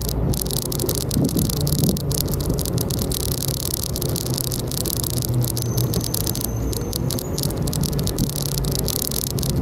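Continuous irregular rattling and rustling from a moving camera rig, over a steady low hum.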